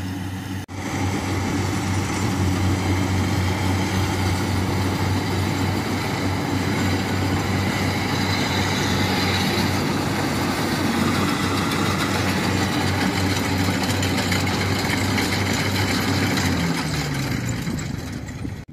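Kubota combine harvester's diesel engine running steadily under load while it cuts and threshes rice, a loud, even machine hum with a dense rush of mechanical noise over it. A brief dip comes about half a second in, and near the end the engine's pitch falls.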